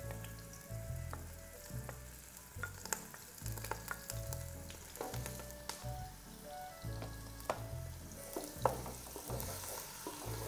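Chopped onion sizzling in hot canola oil in a pot, stirred with a wooden spoon that makes scattered scraping clicks against the pot.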